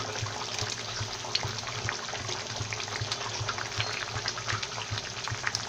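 Curry gravy boiling in a pan, a steady bubbling with many small irregular pops, over a steady low hum.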